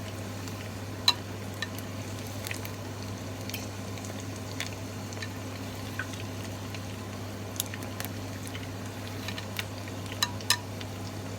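Karaage (Japanese fried chicken) frying in oil: scattered sharp crackles and pops, irregularly spaced, the loudest about a second in and a pair near the end, over a steady low hum.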